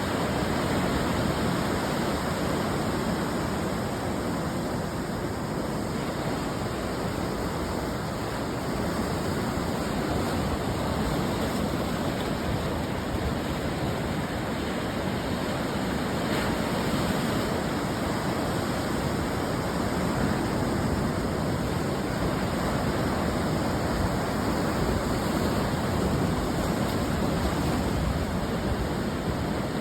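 Ocean surf washing on the shore in a steady, continuous rush, with only gentle swells in loudness and no distinct single breaker.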